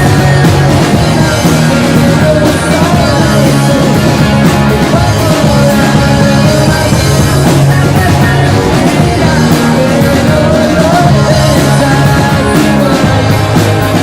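A rock band playing live with two electric guitars, bass guitar and drums, loud and continuous, with a wavering lead line over a steady bass pattern.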